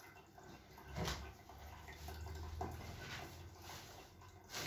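Faint handling sounds of hands pressing and working on a man's back on a massage table, with two short sudden knocks, one about a second in and one near the end.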